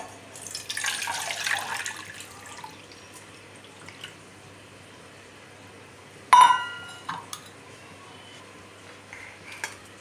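Water poured from a steel bowl into a stainless steel saucepan, splashing for about two seconds. Later, a single sharp metallic clang with a ringing tone, steel kitchenware knocking together, followed by a few light clicks.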